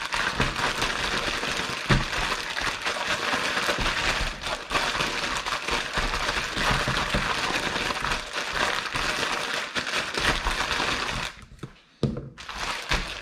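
Plastic bag holding raw chicken pieces and liquid marinade being shaken and worked by hand, the plastic crinkling continuously; it stops about eleven seconds in.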